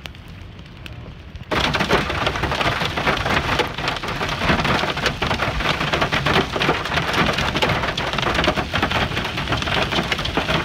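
Hail falling: a soft hiss of hailstones splashing into open water, then, about a second and a half in, a sudden loud, dense clatter of hailstones pelting down close by.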